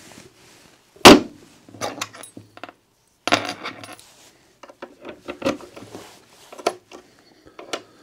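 Wooden cabinet doors shutting, with one sharp knock about a second in. Scattered lighter clicks and metal clinks follow as a small key is handled at the disc tumbler cam lock.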